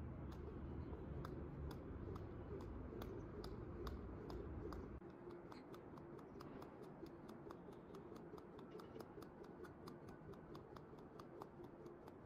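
Skipping rope slapping the pavement with each turn, faint sharp ticks at a steady rhythm of about three a second. A low rumble lies under the first five seconds and then drops away.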